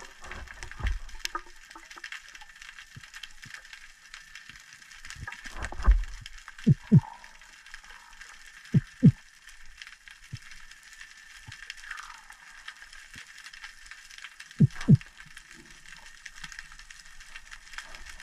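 Underwater ambience over a rocky seabed: a steady crackling hiss with a couple of low water rushes. Three pairs of short, sharp low knocks come about 7, 9 and 15 seconds in.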